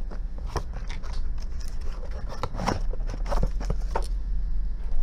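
A small cardboard box being handled and opened by hand: scattered scrapes, rustles and clicks, over a steady low electrical hum.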